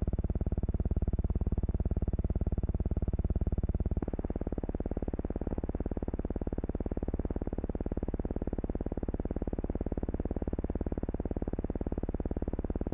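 Steady low buzz with a rapid, even pulse, typical of noise on the soundtrack of a silent film print; it shifts in tone and drops a little in level about four seconds in.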